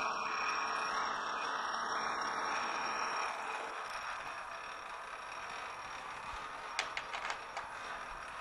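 Metal lathe running at low speed with a knurling tool rolling along the turning workpiece, a steady whir with a faint whine in it. It drops off a little about three and a half seconds in, and a few light clicks come near the end.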